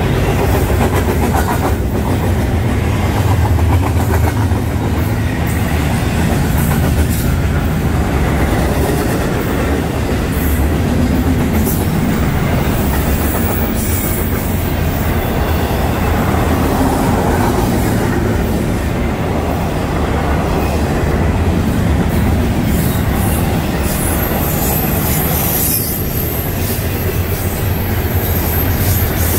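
Double-stack intermodal freight train's loaded well cars rolling past close by: a steady, heavy rumble of steel wheels on rail with scattered clacks. A faint high whine comes in near the end.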